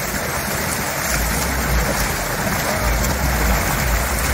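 Heavy stream of water gushing from a large pipe into a brick tank, churning and splashing steadily as a loud, even rush.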